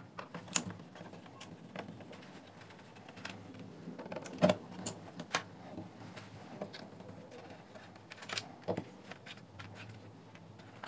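Faint, scattered clicks and scrapes of a small screwdriver turning out the screws that hold a portable radio's speaker, with hands handling the plastic housing.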